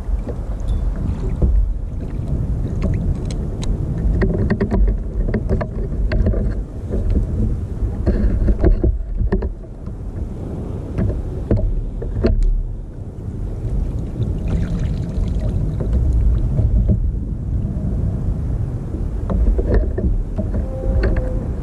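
Wind rumbling on the microphone and water lapping against a plastic sit-on-top kayak, with scattered knocks and clicks as gear and fish are handled on the deck.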